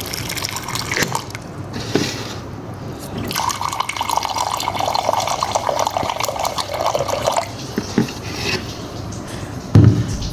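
Warm water poured into a cup, a steady splashing stream lasting about four seconds in the middle. A dull knock comes near the end.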